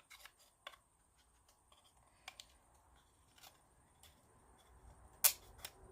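Light scattered clicks and taps of thin plywood kit pieces being handled as a plank is fitted into a slotted barrel end, with a sharper click a little after five seconds in.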